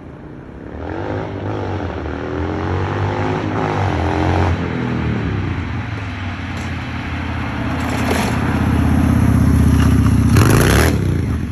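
750cc shifter kart engine revving up through the gears, its pitch climbing and then dropping at each shift. It grows louder as the kart approaches and is loudest as it passes close by about ten seconds in.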